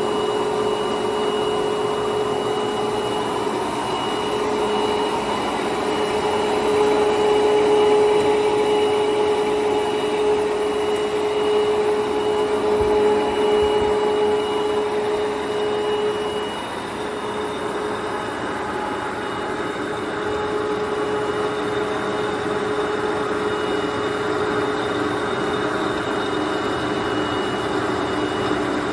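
Large engine lathe (Jin Ling 25180G gap bed) running under power with a steady mechanical whine. About halfway through, the whine changes pitch and drops a little in level, as the machine settles into a different running state.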